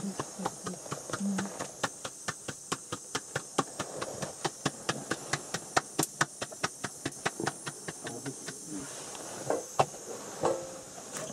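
Rapid, even slapping of chapati dough being patted flat by hand, about five slaps a second, stopping about eight and a half seconds in, over a steady hiss. A few separate knocks follow near the end.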